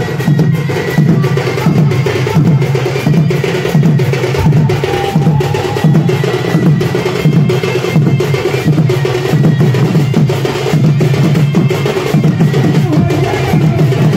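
Live folk drumming: large stick-beaten drums played loudly in a fast, driving rhythm, with a heavy beat about twice a second under the other drums.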